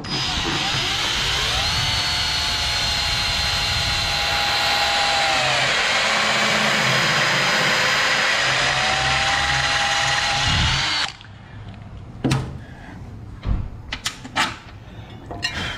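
Cordless drill running as it bores a hole through an aluminum side-step bracket for about eleven seconds. Its whine sags in pitch partway through, climbs back, then stops abruptly. A few short knocks follow as the drill is set down.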